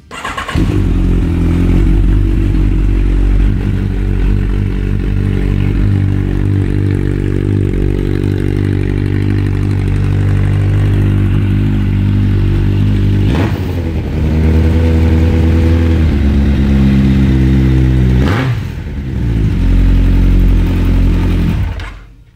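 Yamaha XJR1200's air-cooled inline-four engine running steadily through an aftermarket exhaust, loud, with its engine speed shifting twice before it stops.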